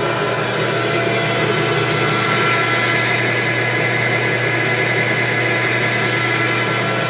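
Vectrax 14-by-40-inch bench lathe running steadily under power, a whir with several steady tones, as the carriage travels on the longitudinal power feed.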